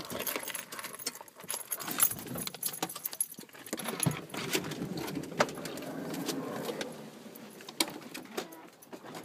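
Light metal jangling with rustling and many sharp clicks and knocks, the handling noise of a scramble out of a car.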